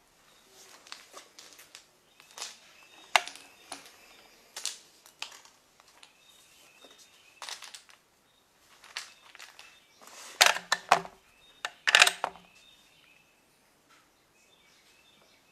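Scattered short clicks and knocks, loudest in two clusters about ten and twelve seconds in, with faint bird chirps in the background.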